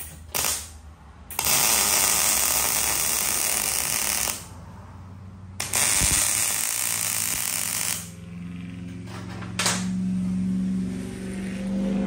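Electric arc welding: the arc crackling and spitting in separate beads, a brief burst about half a second in, then two runs of roughly three and two and a half seconds with a pause between. In the last few seconds the crackle gives way to a quieter, steady low hum.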